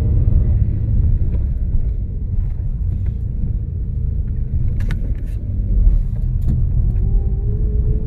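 Car engine and tyre rumble heard from inside the cabin while driving along a narrow, rough road. A few sharp rattles come about five seconds in.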